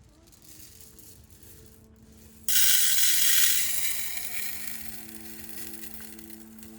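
A sudden loud hiss starts about two and a half seconds in and slowly fades, over a faint steady hum.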